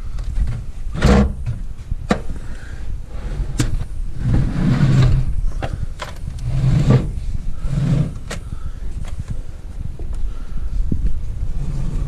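Knocks and thumps of feet and hands on an old wooden ladder during a climb, a sharp knock every second or two with a few heavier swells of noise, over a low rumble of wind on the microphone.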